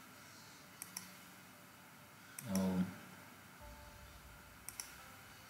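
Computer mouse clicking: two quick clicks about a second in and two more near the end, over faint room tone.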